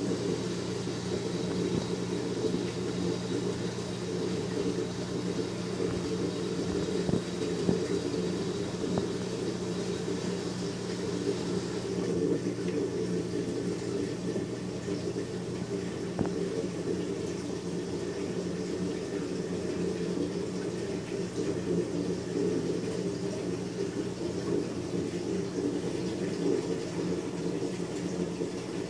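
Reef aquarium equipment running: a steady low hum from the tank's pumps under a constant hiss of circulating water.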